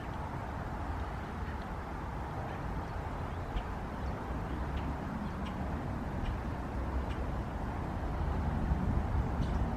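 Wind buffeting the microphone as a gusty low rumble, with faint short high chirps now and then.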